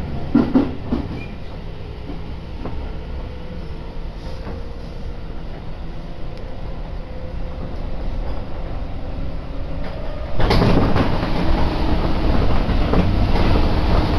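Tobu Isesaki Line commuter train running, heard from inside the passenger car: a steady low rumble of wheels on rails, with a short bump just after the start. About ten seconds in the running noise suddenly grows louder and harsher.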